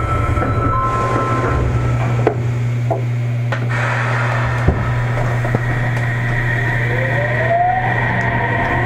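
Sendai subway 1000-series train standing in the station with a steady low hum from its equipment and a few knocks in the first half. Near the end, the Mitsubishi IGBT-VVVF inverter begins its rising whine as the train starts to pull away.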